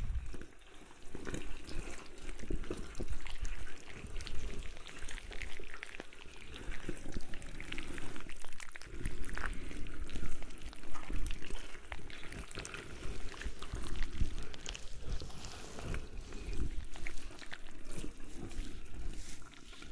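Wet, squelching ASMR foley for slimy octopus tentacles sliding and pressing over the head, recorded close on a binaural microphone. It is a continuous stream of small sticky clicks and squishes that swells and fades unevenly.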